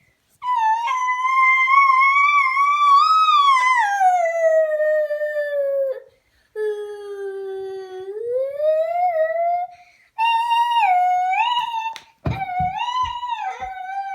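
A dog howling in about four long, wavering calls that slide up and down in pitch; the first lasts over five seconds. A few low knocks come about twelve seconds in.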